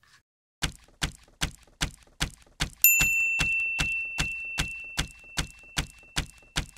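Title-card sound effects: a steady series of dull knocks, about two and a half a second, and a single bell ding about three seconds in that rings on and slowly fades.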